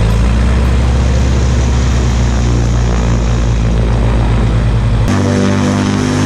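Cirrus SR22's six-cylinder Continental engine running with a newly fitted three-blade Hartzell aluminium propeller during a ground run-up after the propeller change. About five seconds in the sound changes abruptly to a thinner engine note with less bass and clearer pitch.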